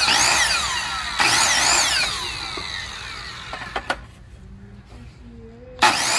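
Ryobi miter saw's motor triggered in two short bursts, each whining up in pitch and then spinning down as the freshly fitted blade coasts. A couple of sharp knocks follow as a board is laid on the saw, then the motor starts again near the end and spins up to a steady high whine.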